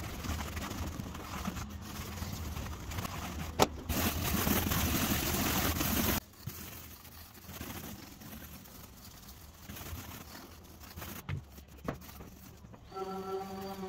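Stiff bristle brushes scrubbing over a leaded stained glass panel, the brushing done to clean and polish the lead and glass, with a few light knocks of the brush on the panel. The scrubbing is loudest for a couple of seconds before it drops off sharply. A steady pitched hum with overtones starts near the end.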